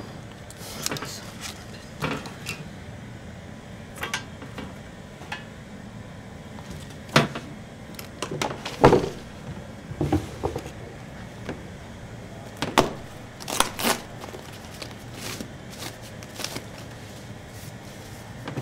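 Scattered clicks, clinks and knocks of supplies being handled on a hospital medication trolley, such as plastic syringes and bottles, in an irregular pattern with a few louder knocks about seven, nine and thirteen seconds in.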